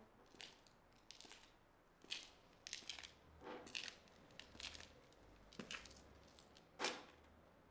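Faint footsteps of shoes scuffing on a hard floor: a series of short, gritty steps about half a second to a second apart, the last one the loudest.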